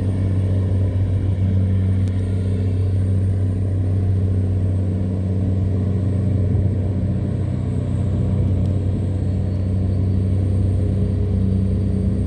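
Tugboat diesel engine running steadily with a low, even drone.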